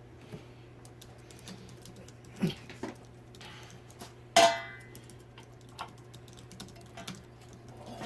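Metal ceiling-fan parts being handled and fitted together: scattered light clicks, a knock about two and a half seconds in, and a loud metallic knock with a short ring at about four and a half seconds, over a steady low hum.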